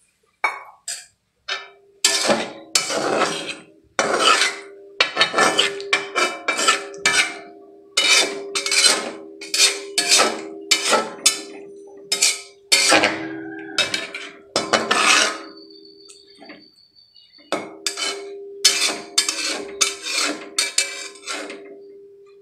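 Spatula scraping and knocking against a metal wok while stirring, in quick irregular strokes two or three a second, the pan ringing with a low steady tone under them. There is a short pause in the strokes about two-thirds of the way through.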